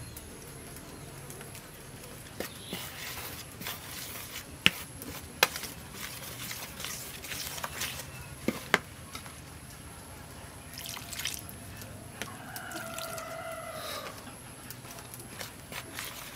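Metal spoon stirring flour, raw egg and seasoning powder into a batter in a plastic bowl: wet scraping with a few sharp clicks of the spoon against the bowl. A short pitched call, falling slightly in pitch, sounds in the background about three-quarters of the way through.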